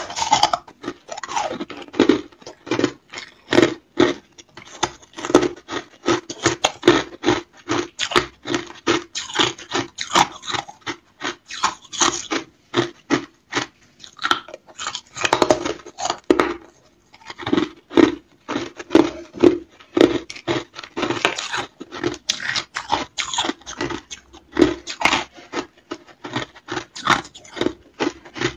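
A person biting and chewing refrozen freezer frost ice: a steady run of sharp, crisp crunches, several a second, broken by a couple of short pauses.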